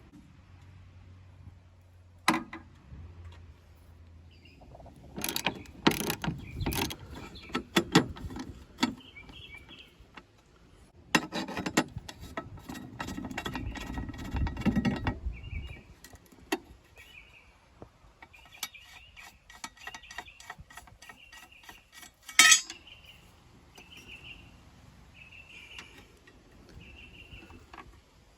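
Ratchet wrench clicking in several runs as the 13 mm bolts of a car battery's hold-down brace are loosened and backed out, with a couple of sharp metal knocks between runs.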